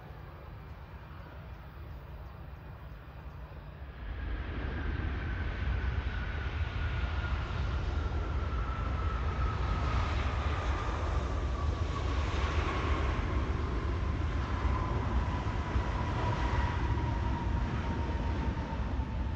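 Jet airliner engines running, a deep rumble with a whine that slides slowly down in pitch. The noise grows suddenly louder about four seconds in.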